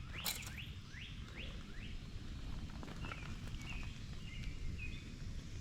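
Songbirds calling: a quick series of short rising chirps, about three a second, in the first two seconds, then scattered chirps, over a steady low outdoor rumble.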